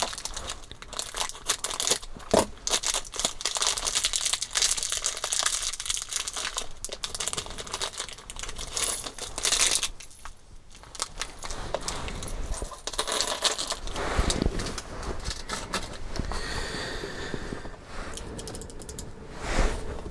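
Clear plastic kit parts bag full of small screws crinkling as it is handled, with small metal parts clicking inside. After about ten seconds the crinkling gives way to lighter clicks and taps of parts and tools on the table.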